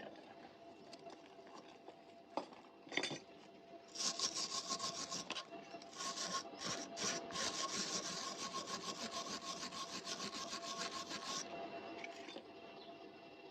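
A hand tool scraping over steel in rapid back-and-forth strokes, about four or five a second, starting about four seconds in and stopping shortly before the end, with a couple of short breaks. It is preceded by a few light knocks.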